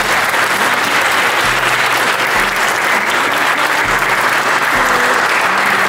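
Crowd applauding steadily, with soft instrumental music underneath.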